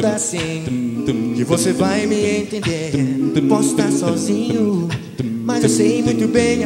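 Male a cappella vocal group singing in close harmony, several voices holding and moving chords together over a low bass line.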